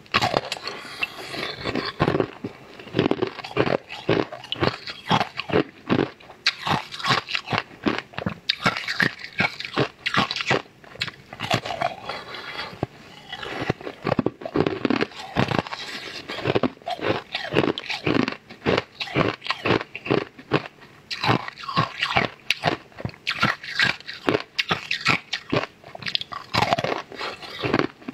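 Close-miked eating: a person biting and crunching a clear, translucent sweet, a dense run of crisp crunches and chewing with short pauses between bites.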